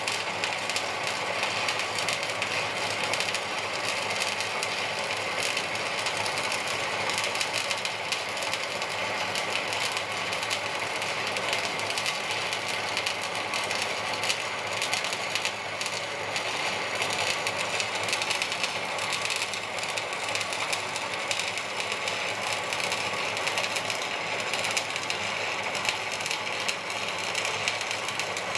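Electric arc welder running a continuous bead on steel plate, a steady dense crackle.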